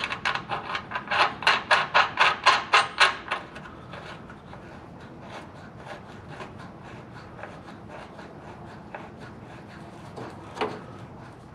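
A quick series of sharp scraping strokes, about four a second, for the first three seconds or so, then faint scattered clicks and taps of tool work.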